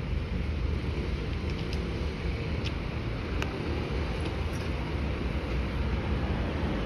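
Outdoor street ambience: a steady low rumble of wind on the microphone and distant traffic, with a few faint clicks in the middle.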